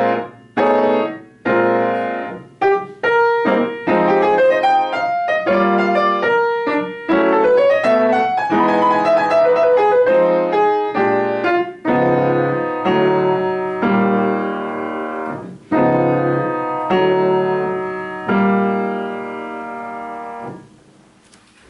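Upright piano played solo: short detached chords, then a melodic passage, then slower held chords. The last chord rings for about two seconds and is damped near the end.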